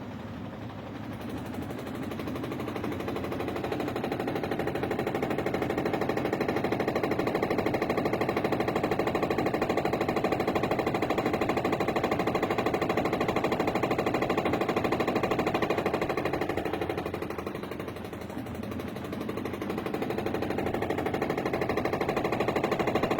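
Electrolux washing machine running with a loud, rapid, even rattling knock. The noise builds over the first several seconds, eases briefly about three quarters of the way through, then comes back.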